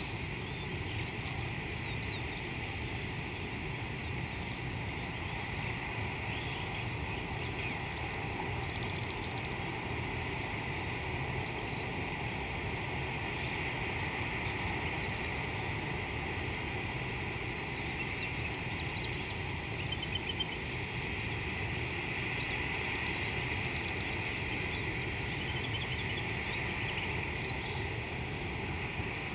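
Steady natural outdoor ambience of the bush: a continuous high hum over a low rumble and hiss, with a few faint chirps about two-thirds of the way through and again near the end.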